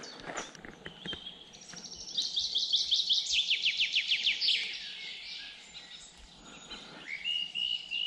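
A songbird sings a fast run of short notes, each sliding downward, the whole run lasting about two and a half seconds; a few short repeated bird notes follow near the end. Footsteps crunch on a gravel track in the first second.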